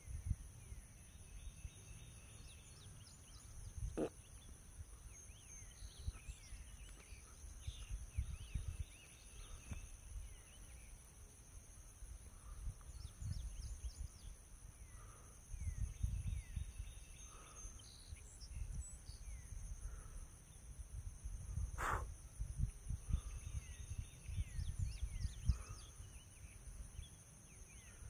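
Outdoor summer ambience: a steady, high-pitched insect chorus with scattered small bird chirps. Low rumbling on the microphone comes and goes, and there are two sharp clicks, a few seconds in and again about three-quarters of the way through.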